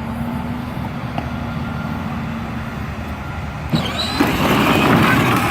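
A ride-on Power Wheels Jeep running on an 18-volt battery: its electric drive motors and gearboxes give a steady hum with a faint whine. About three and a half seconds in there is a sharp click, then a louder, rougher rushing noise.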